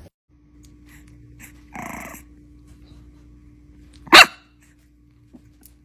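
A young bulldog puppy gives one short, sharp bark about four seconds in, the loudest sound. A softer, brief growly sound comes about two seconds in, over a faint steady hum.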